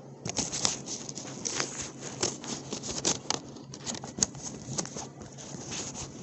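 Handling noise: a phone rubbing and scraping against a zip-up jacket as it is moved and turned, a dense run of irregular rustles and clicks that stops near the end.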